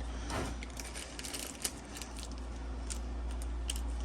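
Small spare parts being handled: a few light clicks and rustles, over a steady low hum.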